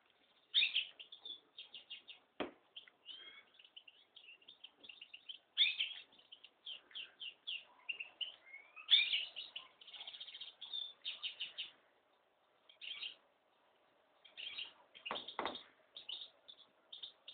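Small pet finch singing: runs of quick chirps and twittering trills, with a short pause about three quarters of the way through. A dull knock about two seconds in and a couple more near the end.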